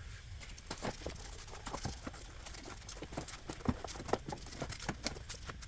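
Irregular light clicks and knocks, several a second, of hand tools and parts being handled during reassembly, over a low steady hum.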